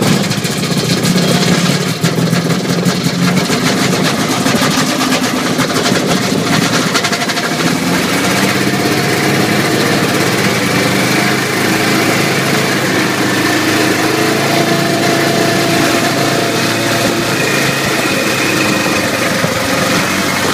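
Kitfox light aircraft's piston engine catching on a choked cold start and running steadily with its propeller, heard from inside the cockpit. The engine speed picks up a little about seven to eight seconds in.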